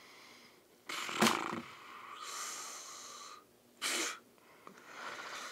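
A man breathing noisily through his nose and mouth: a sharp breath about a second in, a long hissing breath from about two to three and a half seconds, and another short sharp breath near four seconds.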